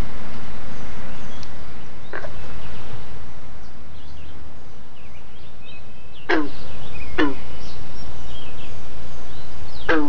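Frogs calling at a small pond: four short calls, each falling sharply in pitch, about two, six, seven and ten seconds in. They sit over a steady low rumble, with faint high chirps between them.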